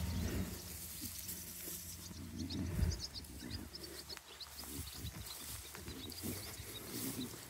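Beltex ewes grazing close by, with short crackly tearing and chewing sounds and quick high bird chirps. A low steady hum cuts off after a single thump about three seconds in.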